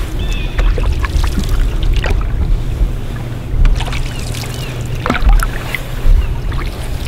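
Canoe being paddled on calm water: wooden paddle strokes through the water with a few light knocks and drips, over a steady low rumble.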